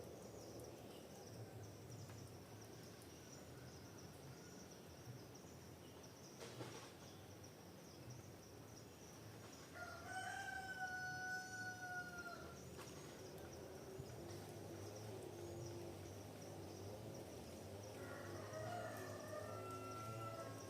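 A rooster crows about ten seconds in, one long call held for a couple of seconds, and begins another near the end. Small birds chirp high and thin throughout over a steady low hum.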